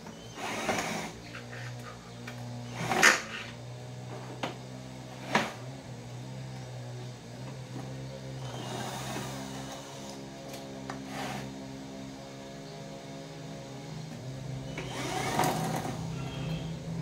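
Cordless drill-driver whirring as it turns screws in a metal box's front panel, its motor pitch shifting several times. Sharp clicks and knocks come now and then, the loudest about three seconds in.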